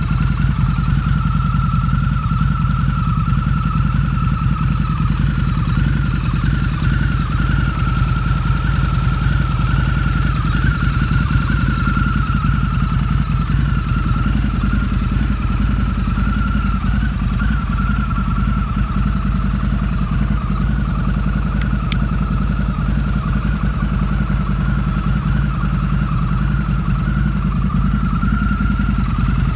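Harley-Davidson Night Rod Special's liquid-cooled Revolution V-twin idling steadily through aftermarket Vance & Hines exhausts. A steady high whine runs over the exhaust note.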